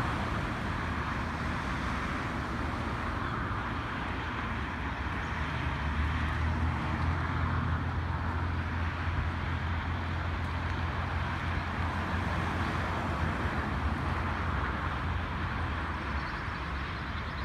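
Steady low rumble of two R-class steam locomotives working hard upgrade as they approach, with no distinct exhaust beats yet; it grows a little stronger about six seconds in.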